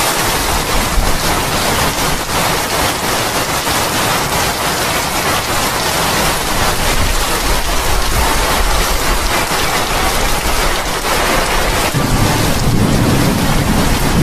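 Steady tropical rain falling on broad leaves and sandy ground, a dense even hiss, with a low rumble rising near the end.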